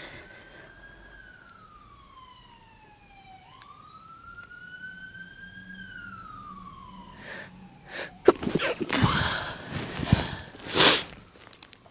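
A siren wails slowly, its pitch falling, rising and falling again. About eight seconds in, a person sneezes several times in quick succession, the last sneeze the loudest.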